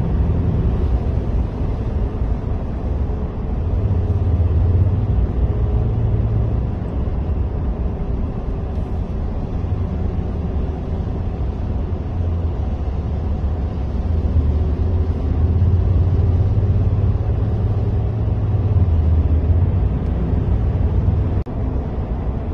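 Car cabin road noise at highway speed on a rain-wet road: a steady low rumble of engine and tyres. The sound drops out briefly near the end.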